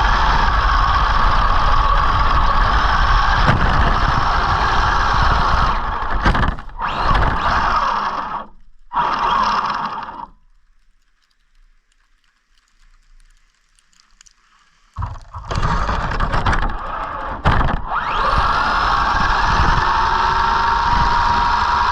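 Arrma Senton RC truck's electric motor whining under throttle, with the rumble of the tyres and drivetrain through snow. The sound breaks up about six seconds in, drops to near silence for several seconds, then comes back with the whine rising as the motor spools up again.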